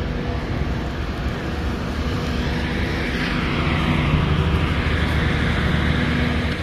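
A steady mechanical rumble with a low hum, growing a little louder around the middle.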